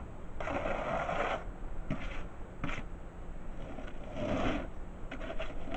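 A trowel scraping and scooping wet cement mortar in a plastic tub: several short, rough scrapes.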